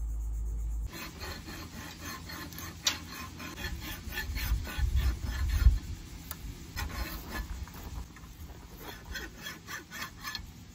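Hand file scraping back and forth in quick strokes on a metal bushing held on a bolt in a small bench vise, starting about a second in. The bushing is being filed down about 1/32 inch all round to fit the boom fitting.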